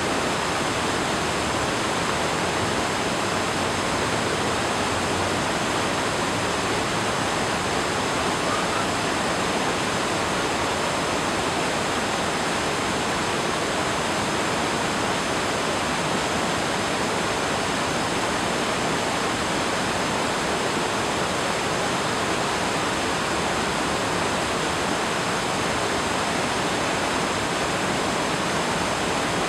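River water flowing, a steady even hiss with no breaks.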